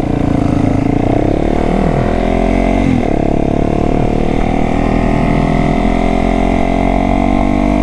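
Single-cylinder four-stroke motorcycle engine pulling away and accelerating, its pitch climbing, with a shift about three seconds in and then a steady rise.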